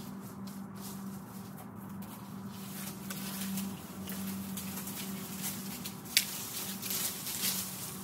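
Cut branches and dry leaves rustling and scraping as brush is dragged across grass, with a sharp snap about six seconds in. A steady low hum runs underneath.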